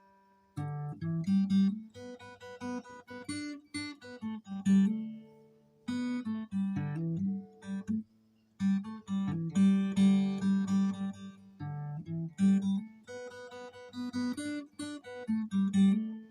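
Solo acoustic guitar playing plucked notes and chords in short phrases, with brief pauses between them.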